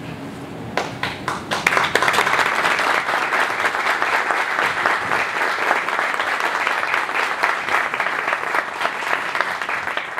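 Audience applauding: a few scattered claps about a second in, quickly swelling into dense, steady applause.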